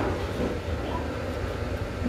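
A short sip of soup broth from a spoon right at the start, over a steady low background rumble.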